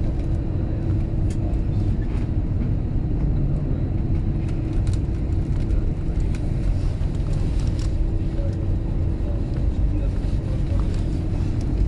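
Jet airliner cabin noise while taxiing: a steady low rumble from the engines and the wheels rolling, with a constant hum running underneath.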